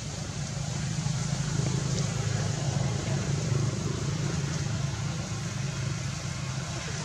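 Low, steady motor engine rumble that grows a little louder about a second in and eases off after about four seconds.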